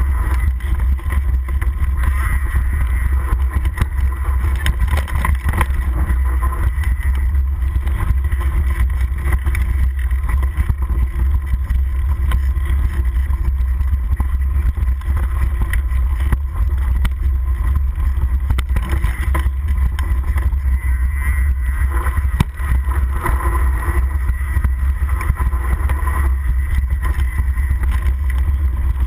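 Mountain bike riding fast down a rough dirt trail, heard through a handlebar-mounted camera: a loud, steady low wind rumble on the microphone with constant rattling and knocking from the bike over rocks and roots.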